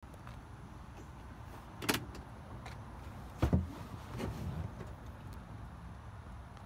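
Handling noises as someone climbs into the cab of a parked Kawasaki Teryx side-by-side: a sharp click about two seconds in, then a couple of heavy low thumps a second and a half later and a few softer knocks, over a faint steady background.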